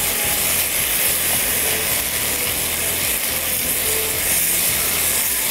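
Thin strips of undercut with garlic and red chillies sizzling steadily in a hot non-stick frying pan while being stirred and scraped with a silicone spatula.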